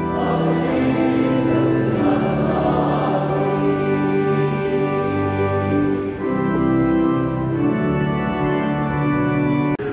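Choir singing a church hymn in long held notes, cutting off abruptly near the end.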